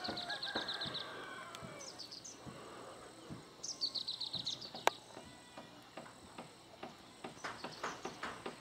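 A bird singing a fast trill of short high notes, once at the start and again about four seconds in, with one sharp click just before five seconds. Footsteps on dry ground begin about seven seconds in, about three a second.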